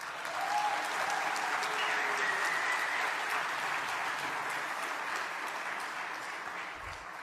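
Audience applauding, setting in quickly and slowly dying away toward the end.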